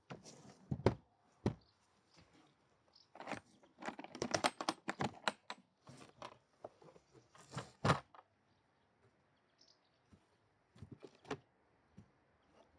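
Irregular clicks, knocks and rustling of objects being handled, loudest about 4 to 5 seconds in and again near 8 seconds, with no steady motor running.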